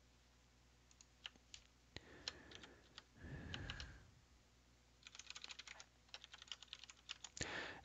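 Faint computer keyboard typing: a few scattered clicks, then a quick run of keystrokes about five seconds in. A brief soft low rustle sounds around three seconds in.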